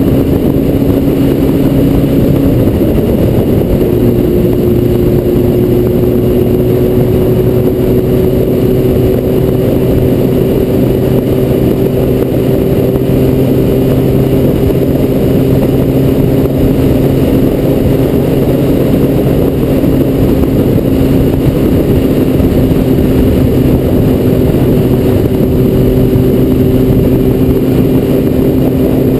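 Honda CBR900RR Fireblade's inline-four engine running at a steady road speed under heavy wind rush over a helmet-mounted camera. The engine note shifts about three seconds in, then rises slowly as the bike gains speed.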